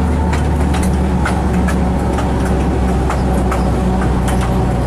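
GE 70-tonner diesel locomotive running along the track, its engine holding a steady low hum under irregular sharp clicks from the wheels on the rails.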